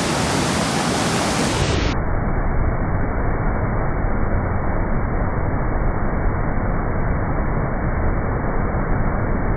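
Steady rush of fast-flowing water, which turns muffled about two seconds in as its hiss is abruptly cut away.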